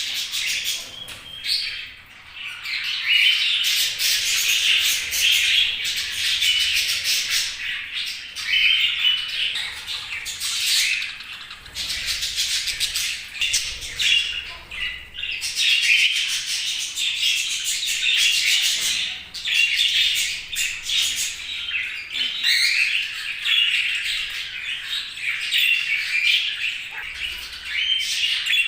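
Budgerigars chirping and warbling nonstop, a dense chatter of short twittering calls mixed with squawks, dipping briefly twice.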